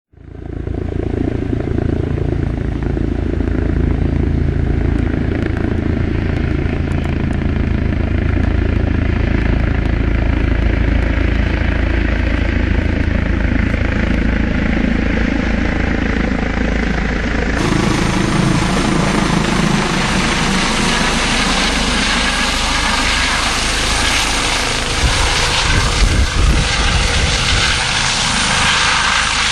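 Medical helicopter running with steady rotor and turbine noise. The sound changes abruptly about two-thirds of the way through, as at an edit.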